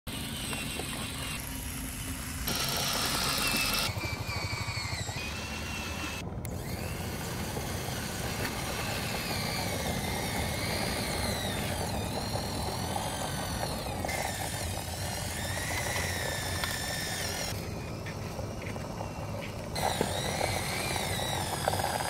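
The small drive motor of a homemade tracked model bulldozer whines with a wavering pitch, and its chain drive and tracks run as it pushes sand. The sound changes abruptly several times.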